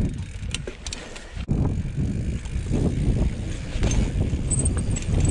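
Banshee Spitfire full-suspension mountain bike rolling fast over rocky singletrack: a rough rumble of tyres and suspension on rock and dirt, with scattered sharp clicks and rattles. It gets louder after a sharp knock about a second and a half in.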